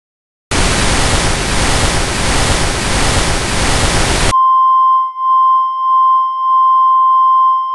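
Television static hiss, starting about half a second in after a brief silence. A little past halfway it cuts off sharply into a steady, high-pitched colour-bar test tone.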